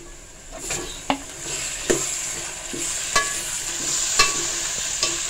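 Raw minced meat frying in hot oil with browned onions in a metal pot: a sizzle that starts about half a second in and grows louder. A metal spoon clinks against the pot about six times as the mince is stirred in.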